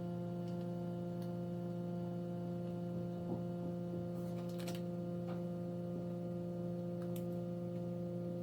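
Steady electrical hum with a few faint light clicks and taps from small-parts soldering work at the bench.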